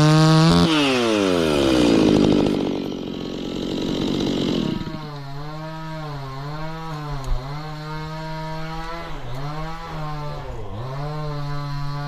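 Two-stroke chainsaw at full throttle, its pitch dropping sharply as the chain bites into the wood. The engine then keeps running under load, its speed sagging and recovering again and again as it cuts.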